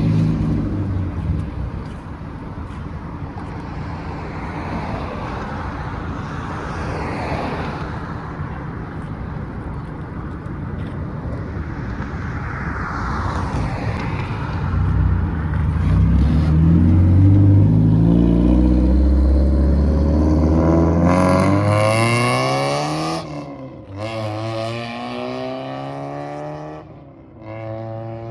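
Car engine running with a low rumble, then accelerating hard near the end: its pitch climbs steeply and drops off sharply twice.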